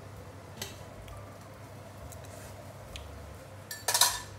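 A spoon and cookware clinking as lard is scooped into the sauce: a few light clicks, then a louder clatter near the end.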